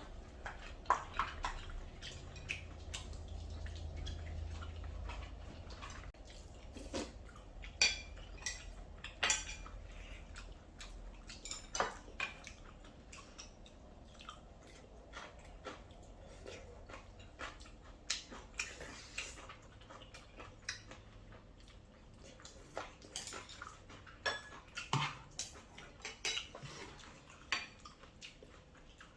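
Spoons and chopsticks clinking and scraping against bowls and plates while eating curry rice, in scattered irregular taps, with a low hum underneath.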